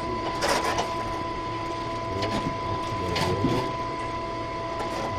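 Crinkly rustling of a cloth parcel bag being handled, in bursts about half a second in and around three seconds in, over the steady hum and high whine of the space station's ventilation fans.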